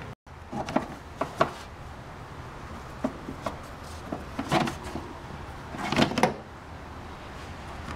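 Hard plastic clicks, knocks and rattles as the Honda S2000's cabin air filter in its plastic frame is worked out of its housing and handled, in four short clusters.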